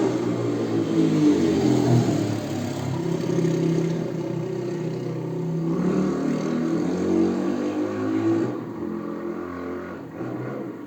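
Motorcycle engine running and revving, its pitch rising and falling, then fading over the last couple of seconds.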